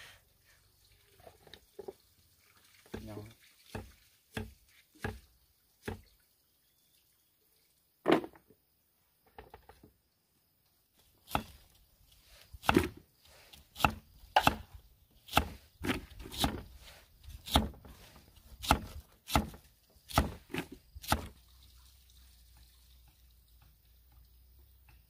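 A kitchen knife chopping sour star fruit into slices against a wooden surface, making a string of sharp knocks. The strokes are scattered at first, then settle into a steady run of about two a second, and stop a few seconds before the end.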